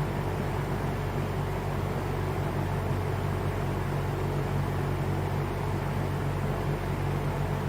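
1983 Lakewood P-58 20-inch box fan running steadily: an even rush of moving air over a low motor hum.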